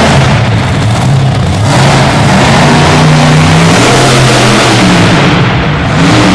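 Monster truck engine revving up and down repeatedly as the truck drives, very loud.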